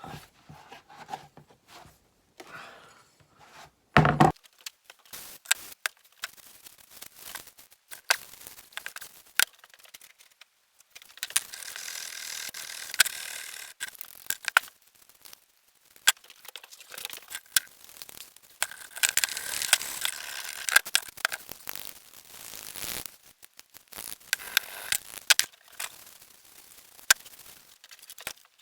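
Hand work on a rusty pair of pliers: scattered sharp metal clicks and knocks, one loud knock about four seconds in, and two longer stretches of scraping.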